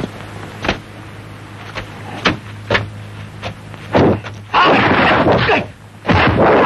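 Kung fu film fight sound effects: several sharp single snaps and thunks in the first few seconds as the fighters square off, then from about four seconds a run of loud swishing whooshes and hits. A steady low hum from the old film soundtrack runs underneath.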